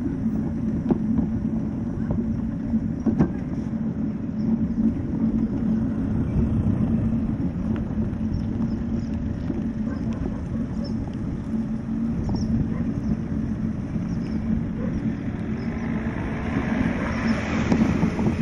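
Steady low rumble of a slow-moving two-wheeled vehicle with a faint steady hum running under it. A hiss swells up near the end.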